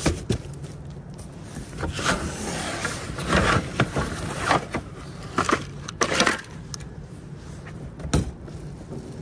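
Cardboard box and boards being handled and shifted against plastic garbage bins: irregular scraping and rustling with a few knocks.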